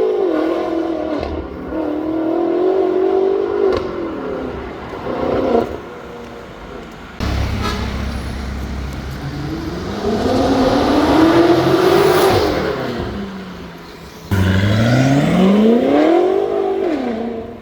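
BMW M5's twin-turbo V8 accelerating in several pulls through a de-catted turbo-back active exhaust. Its note rises and drops between pulls, with the longest climb in the middle. The sound jumps abruptly twice where separate runs are cut together.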